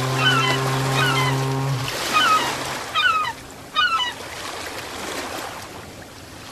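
Ocean waves washing, with birds giving short rising-and-falling calls several times during the first four seconds. A low steady horn-like tone sounds under them and stops about two seconds in.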